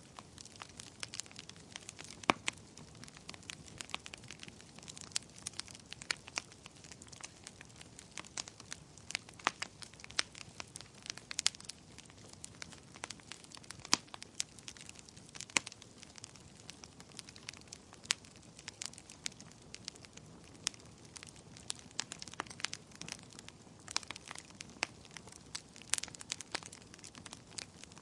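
Wood fire burning with a dense run of sharp, irregular crackles and pops over a low hiss.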